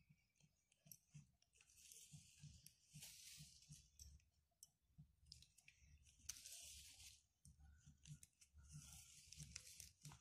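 Faint rustling of plastic cord strands, several about a second long, with light clicks as the cords are handled, braided and pulled tight by hand.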